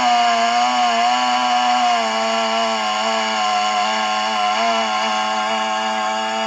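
Stihl 660 two-stroke chainsaw with a 36-inch bar, mounted in a chainsaw mill and running flat out in a steady cut through a blue gum log. Its pitch holds high and even, wavering slightly as the bar works through the wood.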